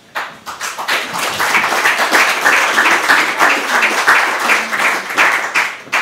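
Audience applauding: dense clapping that builds over the first second and stops abruptly near the end.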